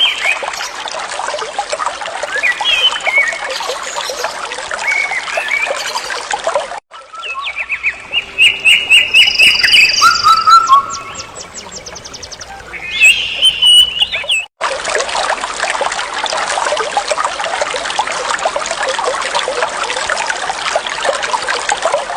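Waterfall rushing as a steady hiss, with birds chirping over it. After a cut, about seven seconds of louder birdsong with only a faint background of water; after another cut, the steady rush of water alone.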